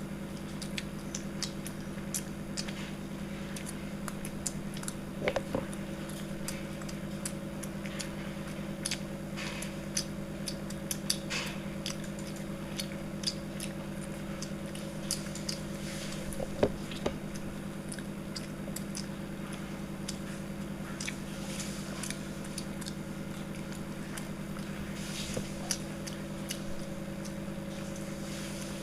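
People chewing and biting mouthfuls of steamed chicken momos in a speed-eating race, with scattered wet mouth clicks. A steady low hum runs underneath.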